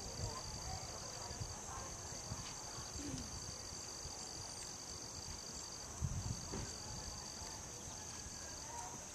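Insects trilling steadily in two high, unbroken tones, with a couple of low thumps about six seconds in.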